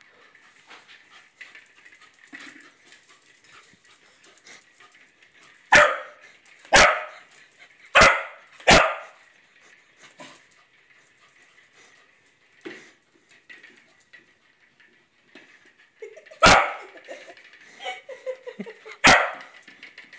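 Corgi barking at a toy hamster: six sharp barks, four in quick succession about six to nine seconds in, then two more near the end.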